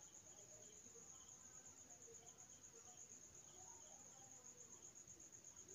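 Near silence: room tone with a faint, steady, high-pitched trill.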